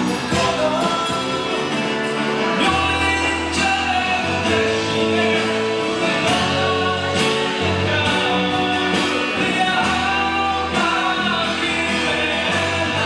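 Live band music with male singing, acoustic guitar and drums. Low bass notes come in about three seconds in.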